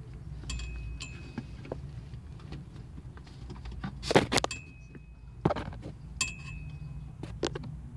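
Electrical tape being peeled off a wire splice in a car's wiring: short crackling rips, the loudest about four seconds in and another about a second later, among light clicks and rustles of the wires being handled.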